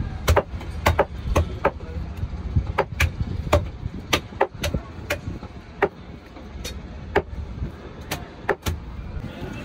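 Large knife chopping swordfish flesh into chunks, the blade striking a wooden chopping block in sharp, irregular knocks about one or two a second, over a low steady rumble.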